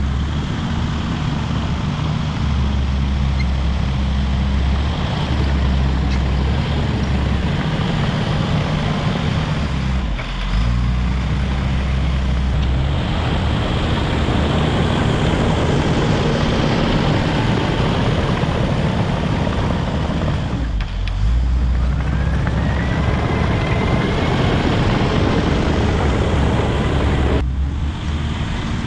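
Caterpillar D5 wide-track bulldozer's diesel engine running steadily with a low drone while grading, dipping briefly three times.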